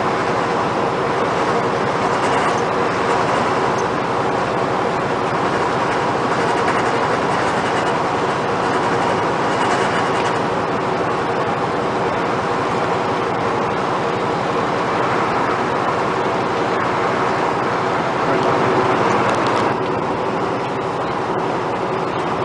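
Steady drone inside a semi-truck cab at highway speed: engine hum with tyre and road noise. Near the end it changes to a slightly quieter steady hum.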